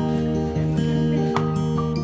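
Background music: a slow instrumental with held notes and occasional plucked notes.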